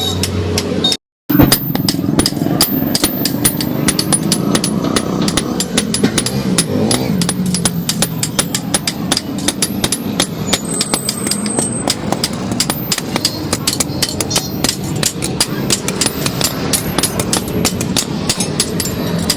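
Rapid, continuous hammer blows on metal, several sharp strikes a second, over a steady low running noise.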